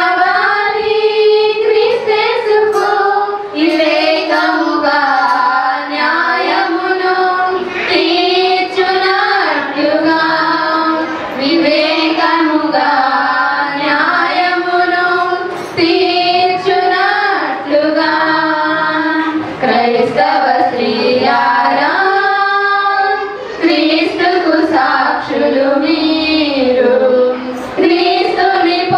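Women's voices singing a Telugu Christian hymn in a high register, in melodic phrases a few seconds long with short breaths between them.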